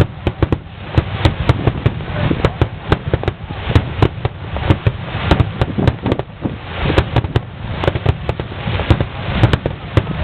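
Aerial fireworks bursting in rapid succession, a continuous barrage of sharp bangs and crackles, several a second, over a low rumble of booms.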